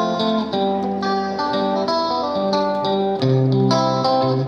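Background music played on guitar, a run of plucked notes and chords at a steady pace.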